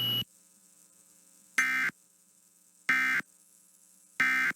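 Emergency Alert System end-of-message data tones: three short identical bursts of two-tone digital warbling about 1.3 seconds apart, the SAME "NNNN" code that closes the broadcast warning, with a faint hum between them.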